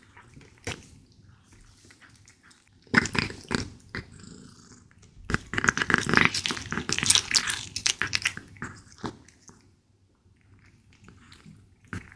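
British shorthair cat eating raw beef: wet clicking bites and chews, a short bout about three seconds in and a longer, louder bout from about five to eight seconds, with a faint purr underneath.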